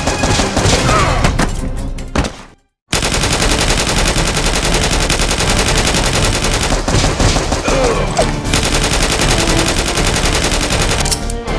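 Rapid automatic gunfire sound effects, a fast steady rattle of shots over action background music. The sound cuts out to silence for a moment about two and a half seconds in, then the firing resumes.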